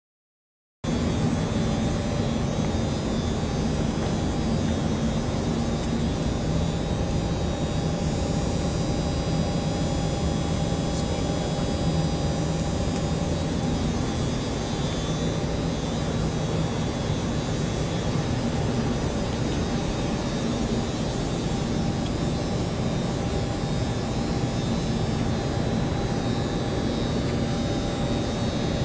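Steady drone of an industrial shop floor: a continuous rushing hum carrying several steady tones, which starts abruptly about a second in.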